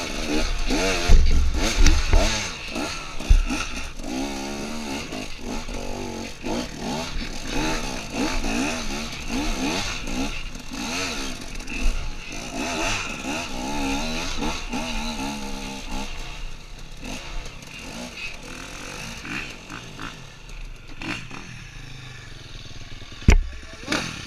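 Enduro dirt bike engine revving up and down in short bursts while riding over rough, rocky ground, with knocks and clatter from the bike. In the last third the engine settles lower and steadier, and there is one sharp loud knock near the end.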